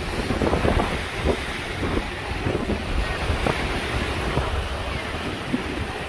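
Small waves washing up on a sandy beach, with wind buffeting the microphone in a gusty low rumble.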